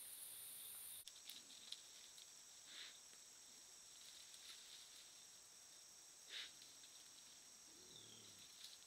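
Faint, steady chorus of night insects chirring, with a few soft ticks and rustles. A higher hiss stops abruptly about a second in.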